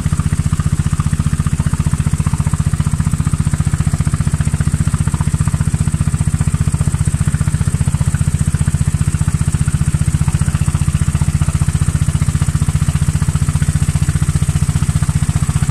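A tour boat's engine running steadily at low cruising speed: an even, fast low throb that does not change.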